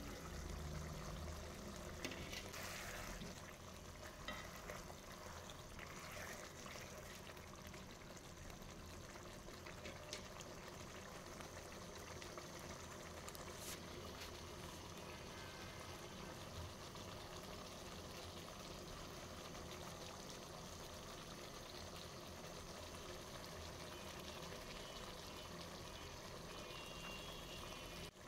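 Beef and potato curry simmering in a pot: a faint, steady bubbling and sizzling, with a few light ticks.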